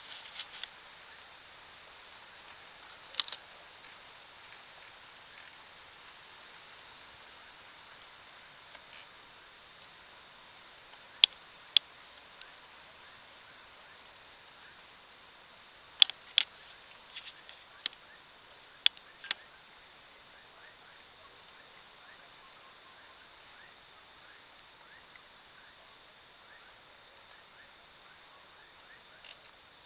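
Steady high-pitched chorus of crickets and other insects, with a few sharp clicks scattered through the middle, the loudest a pair about 11 seconds in and another pair about 16 seconds in.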